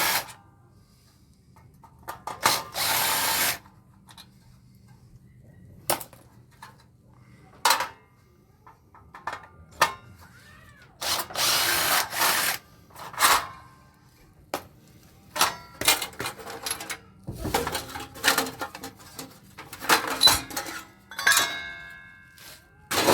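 Power drill running in short bursts of about a second on an air-conditioner condenser being taken apart for scrap, with clicks and metal knocks between the bursts as parts are handled.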